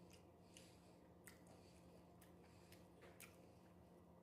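Near silence: room tone with a low steady hum and a handful of faint, brief clicks.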